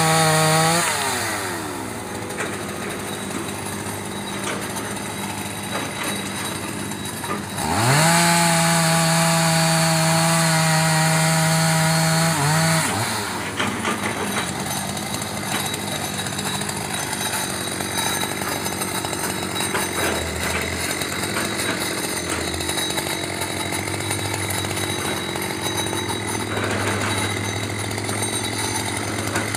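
Two-stroke chainsaw cutting rubberwood logs at full throttle, then dropping to idle about a second in. It climbs back to full throttle for about five seconds from around eight seconds in, falls back to idle, and revs up again at the very end.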